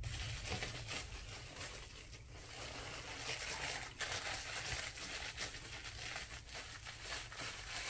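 Crinkling and light clicking of a spoon scooping Korean chili powder (gochugaru) from its packet, over a steady low hum.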